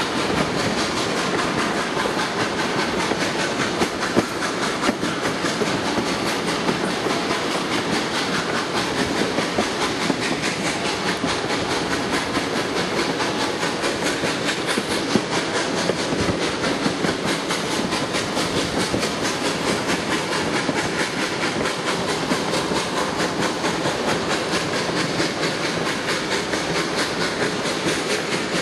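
Passenger coach of a moving train running along the track: a steady rush and rumble with fine rapid clicks from the wheels on the rails, heard at an open coach window.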